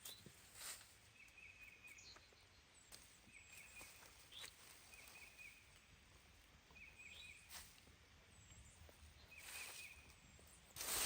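Faint outdoor ambience with a small animal's short, stuttering chirp repeated every second or two, and a few light rustles. A louder rush of noise starts near the end.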